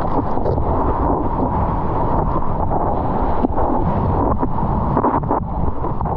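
Water rushing and splashing around a GoPro on a surfboard as the surfer paddles, with wind buffeting the camera microphone: a loud, steady, dull rush without let-up.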